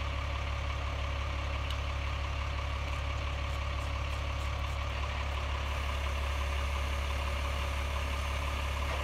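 Utility boom truck's engine idling, a steady low drone.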